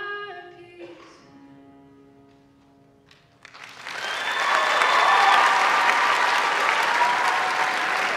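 The last sung note and the upright piano's final note ring out and fade. About three and a half seconds in, an audience starts applauding loudly.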